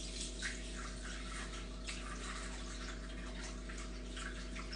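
Water poured from a bottle into a Thermomix's stainless-steel bowl, a thin trickle with faint splashes. A steady low hum runs beneath it.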